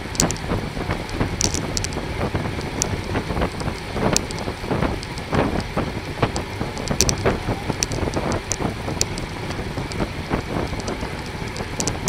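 Wind buffeting the microphone and road noise while riding a bicycle, a steady rushing haze with frequent short clicks and crackles.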